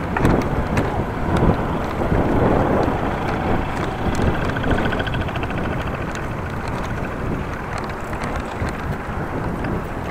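Wind buffeting the microphone of a bike-mounted action camera while cycling, over the rumble of road traffic, with a few sharp clicks.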